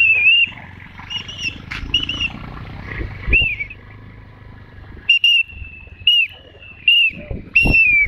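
Repeated short, high whistled notes, several ending in a quick downward slide, over the low rumble of motorcycles riding on a rough dirt road.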